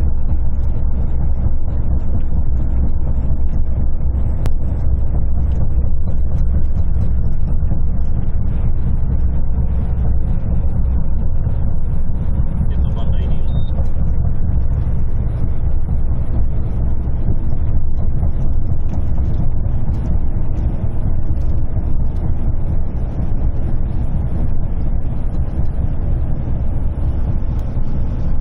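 Steady low rumble inside a truck's cab as it travels at motorway speed, with the wheels beating a repeated "dadadadada" over the joints of the motorway's concrete slabs.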